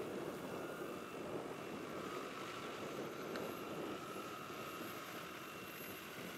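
Large electric scale model Hughes 500 helicopter with a 2.65 m rotor flying by, its rotor blades making a steady rushing sound with a faint steady whine over it.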